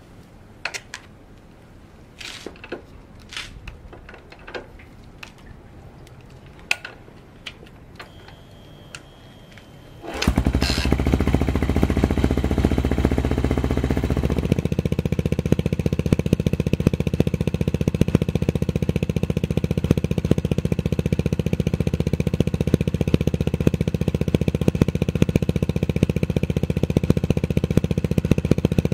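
Yamaha SR400's air-cooled single-cylinder engine, with a Goods tapered-cone slip-on muffler, being kick-started. Light clicks and knocks come first, then the engine catches about ten seconds in. It runs briefly at a higher speed, then settles about four seconds later into a steady, even idle.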